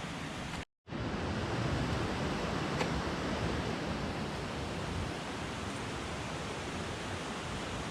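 Steady rushing of a mountain stream, an even wash of water noise. It drops out completely for a split second under a second in, then carries on unchanged.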